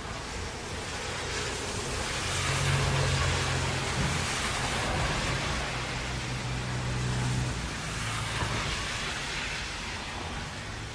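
Steady rain with a vehicle passing on a wet road: the hiss of its tyres and a low engine hum swell about two seconds in, then fade away after about seven seconds.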